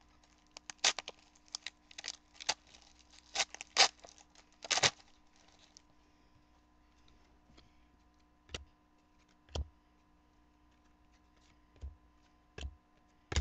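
Trading-card packs and cards being handled: a quick run of crinkles and clicks for about the first five seconds, then a few separate dull taps as cards are set down.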